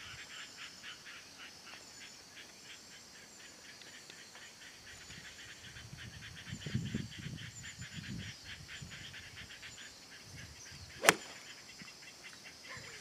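A single sharp crack of a golf club striking the ball on a tee shot, about eleven seconds in. Before it, insects chirp steadily in a quick pulsing rhythm of about four or five chirps a second.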